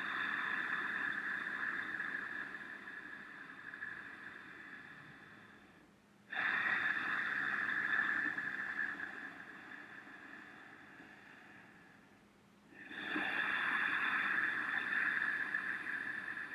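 Ujjayi breathing: long breaths with the lips sealed and the back of the throat slightly constricted, giving a steady breathy rush. Three in a row, each starting suddenly and fading away over about six seconds.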